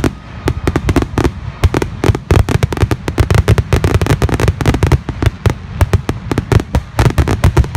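Aerial fireworks going off in a rapid barrage: sharp bangs and crackles several times a second, overlapping over a continuous low rumble.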